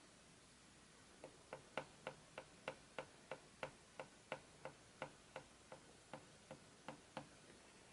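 A run of light, sharp clicks, about three a second and slightly uneven, starting about a second in and stopping shortly before the end.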